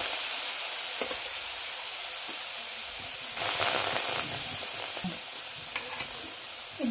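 Palm fruit pulp sizzling and hissing as it is ladled into a hot karahi. The hiss fades slowly and swells again about three seconds in as more pulp goes into the pan.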